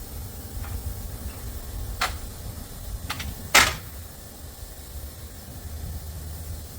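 Four sharp knocks over a low steady rumble: one about two seconds in, a quick pair a second later, then the loudest about halfway through.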